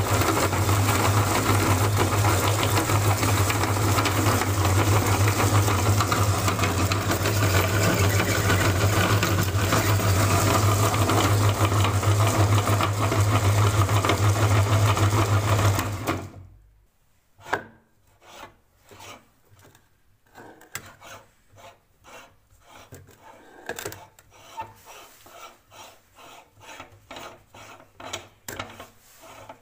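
Electric meat grinder running steadily with a strong low hum as it grinds lollipops, switched off about 16 seconds in. Then irregular scraping and clicking as a hand works at the grinder's metal head.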